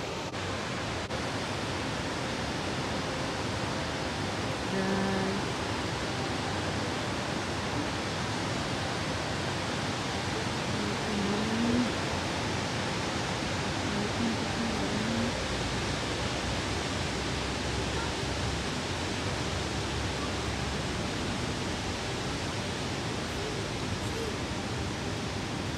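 Steady rushing of river water pouring over a low weir, an even hiss of white water.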